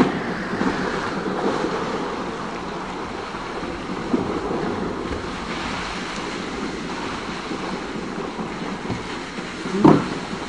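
Pool water lapping and splashing close to the microphone, with wind buffeting the microphone. A sharp knock right at the start and a short louder sound near the end.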